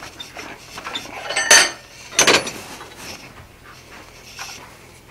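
Steel blacksmithing tools clanking against each other and the vise: two loud, sharp metallic knocks about a second and a half in and again just under a second later, each ringing briefly, with lighter clinks around them.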